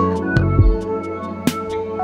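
Instrumental background music: sustained pitched tones over a bass line, with sharp percussion hits.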